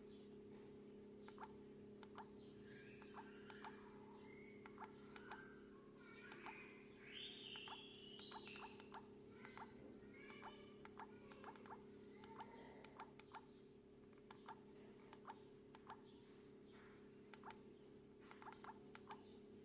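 Near silence: a steady low hum with faint, scattered short clicks throughout, and some faint wavering sounds in the middle.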